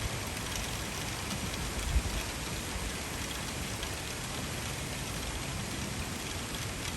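Intense rain falling steadily in a downpour, an even hiss of rain hitting surfaces, with a brief low thump about two seconds in.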